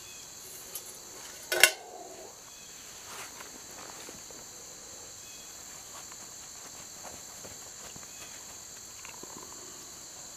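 Steady high chirring of insects in the background, with one sharp metallic clank of the steel cooking pot about a second and a half in.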